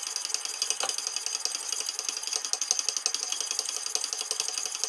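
Wicked Edge 600-grit diamond sharpening stones rasping along a steel knife edge in quick alternating strokes: a steady, high-pitched scratchy rasp.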